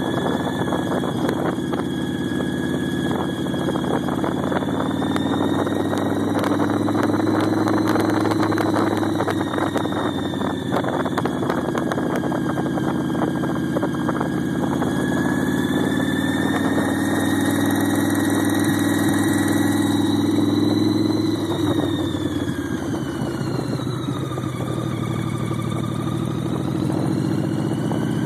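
2005 Big Dog Ridgeback motorcycle's V-twin engine running under way, its note rising and falling with the throttle, along with a high whine that follows it. It eases off a little past two-thirds through and picks up again near the end.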